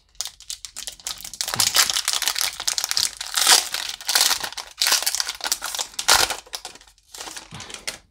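Pokémon Darkness Ablaze booster pack wrapper being torn open and crinkled in the hands: a dense crackling of the foil-lined plastic, loudest in the middle and dying down near the end.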